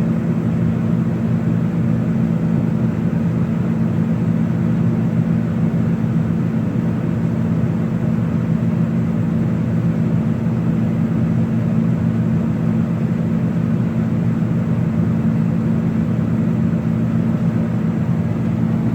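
John Deere 9600 combine running steadily while harvesting: a constant low engine drone that keeps the same pitch and level throughout.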